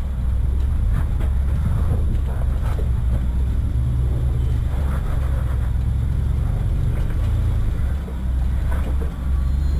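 A 4x4's engine running at low revs while the vehicle crawls up steep slickrock, a steady low drone with a few short knocks.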